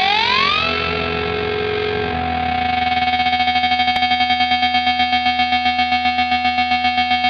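Distorted electric guitar sustaining a note that bends up in pitch, then holds. From about three seconds in, a tremolo effect chops it into fast, even pulses.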